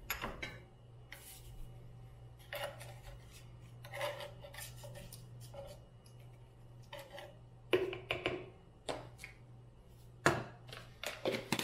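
Small plastic measuring scoop scraping and tapping in a tub of supplement powder, with scattered clicks and knocks of plastic containers and lids being handled, over a steady low hum.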